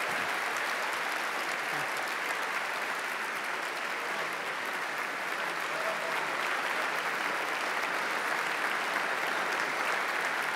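Large audience applauding, steady sustained clapping from many hands.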